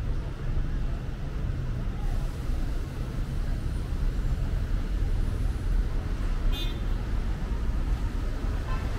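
Street ambience: a steady low rumble of road traffic, with a short high chirp about two-thirds of the way through.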